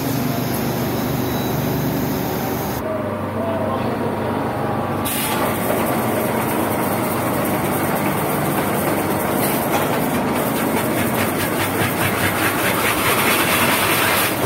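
Log debarking machine running and stripping the bark from a spinning rubber-wood log: a loud, steady mechanical clatter, with a fast, even rattle through the second half.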